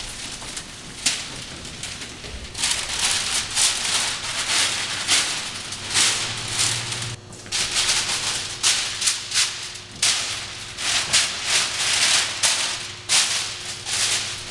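Dry rustling and crunching in short, irregular bursts, about one or two a second, over a faint steady hum.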